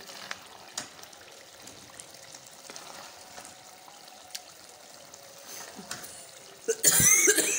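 Thick turnip-and-spinach curry simmering and sizzling in a metal pot while a wooden spoon stirs it, with scattered small clicks of the spoon. Near the end comes a much louder burst of scraping and clattering as the spoon works the pot.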